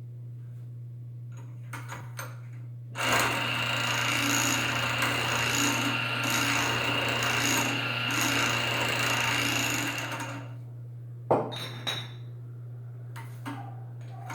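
Homemade beer-bottle washing machine, driven by an old automatic gate motor, running for about seven seconds. It makes a steady scraping, rubbing noise with a constant high whine, then cuts out and is followed by two sharp knocks.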